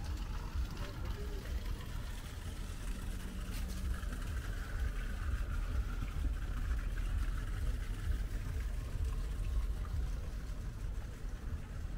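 A steady low rumble with faint voices in the background.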